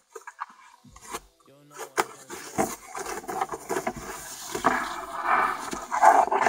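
Unboxing handling: a mechanical keyboard being taken out of its packaging, with scattered knocks and clicks and a rustling, rubbing sound of packaging that thickens in the last couple of seconds.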